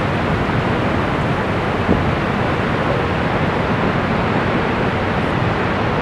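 The steady rushing roar of Niagara Falls, an even wash of falling water, with a brief low thump about two seconds in.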